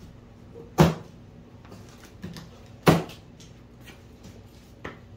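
Two sharp snaps about two seconds apart as plastic packing straps on a large cardboard box are cut and spring loose, with a fainter click near the end.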